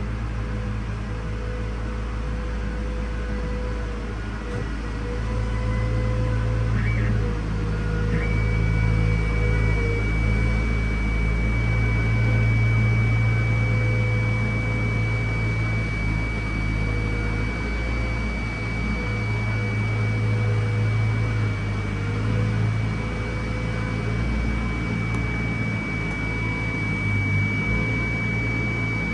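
Stratasys Objet260 Connex3 PolyJet 3D printer running: a steady hum of its fans and motors, with a thin high whine that comes in about eight seconds in and holds steady.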